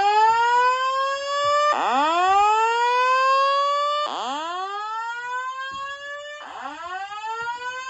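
Fire alarm voice evacuation speaker sounding the slow whoop tone: a rising sweep repeated about every two and a half seconds, four times. This is the alert tone that precedes the spoken fire evacuation message.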